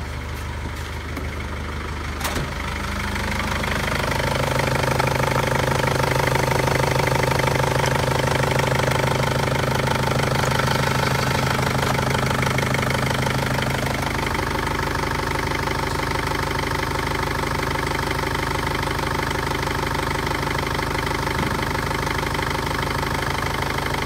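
Mercedes-Benz OM611 2.2 CDI four-cylinder common-rail diesel idling steadily, heard close at the engine bay. It grows louder over the first few seconds, and its tone shifts slightly a little over halfway through.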